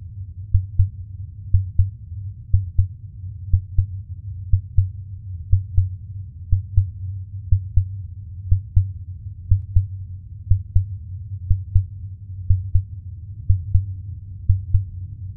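Slow heartbeat-like pulse of low, muffled double thumps, about one pair a second, over a steady low rumble.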